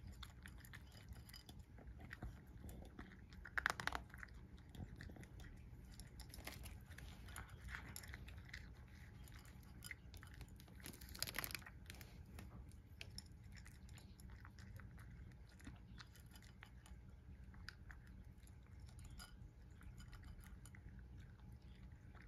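A cat crunching dry kibble mixed with bonito flakes: faint, steady chewing made of many small crunches, with a couple of louder bites about four and eleven seconds in.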